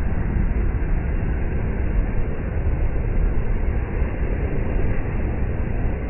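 Ocean surf breaking on a sandy beach: a steady, low rumbling wash of waves with no distinct individual crashes.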